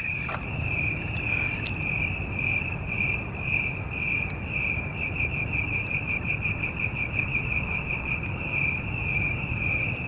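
Crickets chirping: a steady, high, pulsing chirp about twice a second that quickens for a few seconds near the middle. A few faint clicks come from hands twisting small wire nuts onto thin wires.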